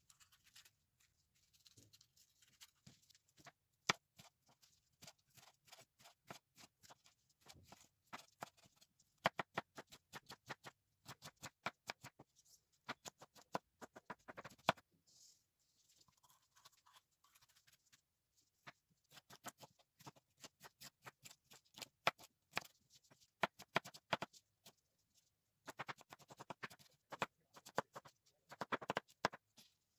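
Chef's knife dicing bell peppers on a bamboo cutting board: quick runs of sharp taps of the blade on the wood, in bursts with short pauses between.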